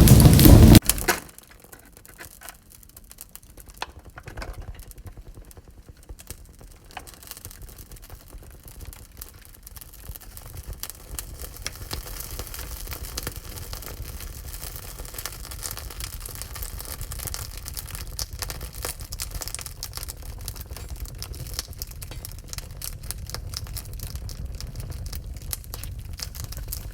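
Wood fire crackling in a wood-burning stove: a dense, irregular run of small pops and snaps that slowly grows louder. A loud rain-like rushing noise cuts off abruptly about a second in.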